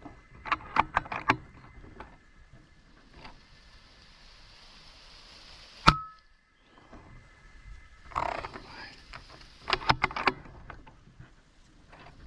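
An FX air rifle firing a single shot about six seconds in: one sharp crack with a brief ringing tone. Small mechanical clicks of the rifle being handled come before and after it.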